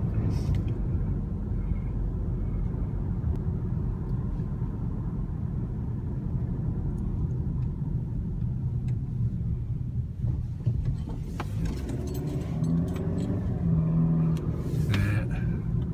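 Strong sandstorm wind rumbling and buffeting steadily, with a low pitched hum joining in near the end.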